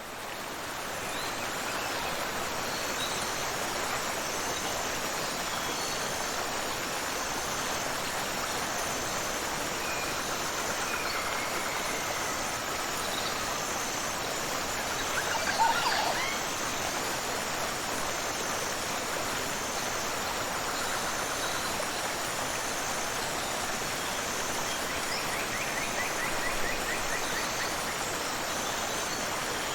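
Steady rush of a tropical waterfall and flowing river, fading in over the first couple of seconds. Over it run a faint high chirp repeating about once a second and scattered bird calls, one louder call about halfway through and a short trill near the end.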